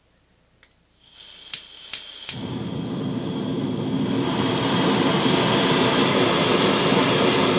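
Coleman camping stove's gas burner: gas hisses faintly, three sharp ignition clicks, then the burner lights and burns with a steady rushing sound that grows louder. It cuts off near the end as the gas is shut off.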